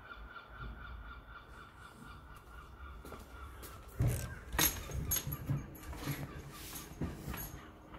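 A front door's lever handle and latch clunk as the door is pushed open about halfway through, followed by a run of sharp knocks and clicks as it swings and is stepped through. Before that, a steady, evenly pulsing high tone.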